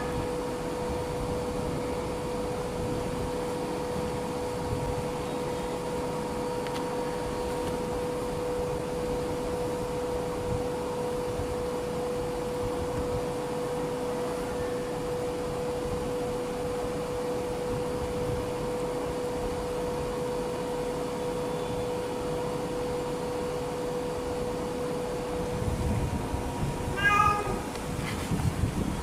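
A steady hum over background noise, and a kitten meowing once, briefly, near the end.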